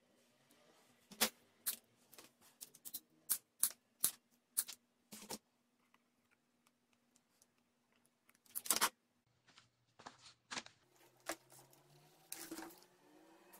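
Irregular sharp clicks and taps of hands handling a homemade toy locomotive made of cardboard and drink cans, with a louder clatter about nine seconds in.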